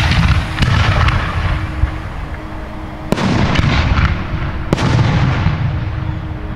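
Aerial fireworks bursting: a string of sharp booms, each followed by rumbling and crackling as the shells break. Bigger bursts come about three seconds in and again near five seconds.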